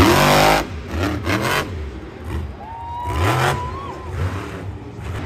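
Monster truck's supercharged V8 revving hard in repeated bursts, rising and falling, the loudest burst right at the start.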